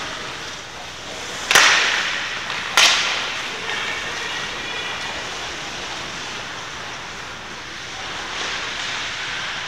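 Two sharp smacks about a second apart, each with a short fading tail, over a steady background din.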